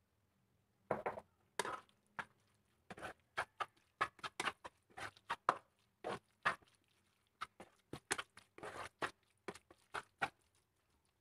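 A spatula scraping and knocking against a frying pan while stirring minced chicken filling with grated cheese: a quick, irregular run of short scrapes and taps that starts about a second in.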